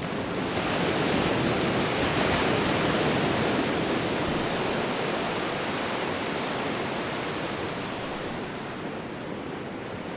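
Steady rush of fast-flowing floodwater, an even hiss that swells about half a second in and slowly eases off.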